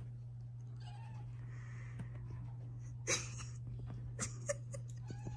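British shorthair kitten making a few small, faint meows while it plays, with a brief louder, noisier sound about three seconds in and a couple of short ticks soon after.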